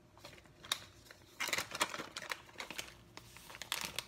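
Plastic chocolate wrappers being handled and crinkling, in several irregular bursts starting about a second and a half in.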